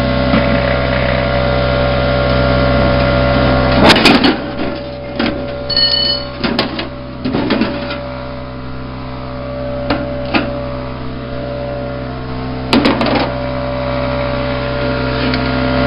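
Plasma cutter humming steadily at idle after a cut, its fan and air still running. Several sharp clanks and knocks of steel being handled come over it about four seconds in, through the middle, and again near thirteen seconds.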